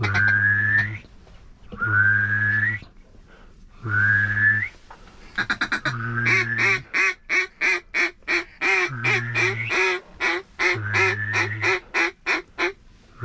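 Duck calling. Long calls with a rising whistle-like pitch come about every two seconds, then about five seconds in a fast run of short quack-like notes starts and goes on until near the end.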